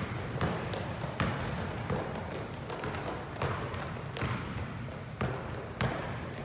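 A basketball bouncing on a hardwood gym floor in irregular knocks as it is dribbled and passed. Sneaker soles squeal on the boards about a second and a half in, and again in a longer squeak from about three seconds in.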